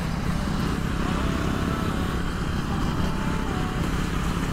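Motorcycle engine running steadily under way, with a constant rush of wind and road noise.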